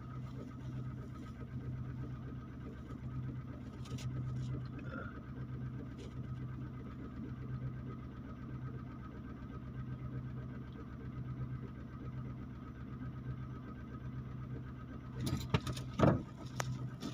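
A small engine running steadily with a low, even hum. Near the end come a few sharp clatters and one loud knock.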